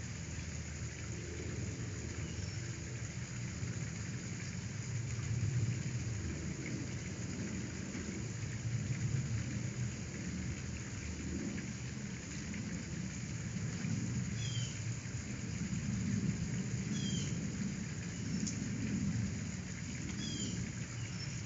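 Steady background hiss with a low, wavering rumble underneath, and a few short high chirps in the second half.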